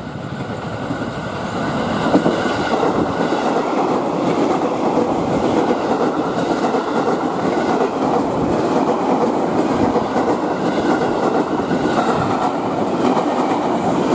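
KRL Commuterline electric commuter train passing close at speed, its wheels clattering over the rails with a steady rumble. It grows louder over the first two seconds as the train draws level.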